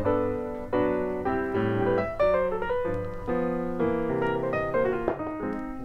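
Background piano music: a melody played over chords.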